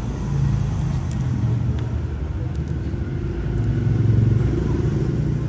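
A low, steady rumble that swells a little about four seconds in, with a few faint light ticks over it.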